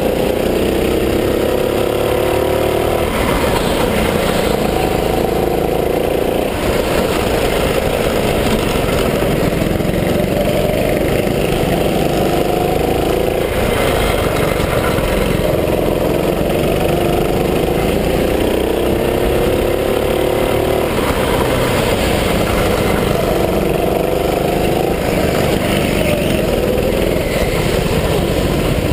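Gas-powered go-kart engine running at racing speed, repeatedly accelerating: its pitch climbs over two or three seconds, then drops back as the throttle comes off, again and again.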